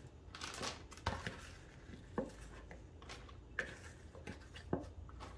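Wet apple slices scooped by hand from a bowl and dropped into a plastic zip-top bag: a few soft, irregular clicks and knocks with light rustling.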